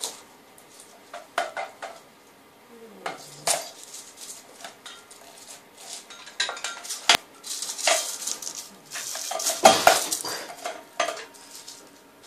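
A small bell on a cat's collar jingles in irregular bursts as the cat hops and jerks about, with the busiest, loudest jingling about eight to ten seconds in.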